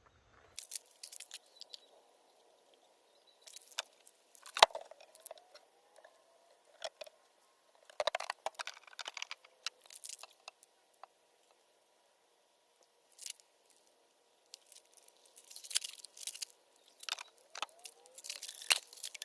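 Pipes being worked and lined up in holes cut in a cooler for a homemade air conditioner: intermittent scraping, squeaking and clicking of pipe against the cooler, with one sharp knock about four and a half seconds in and busier scraping near the end.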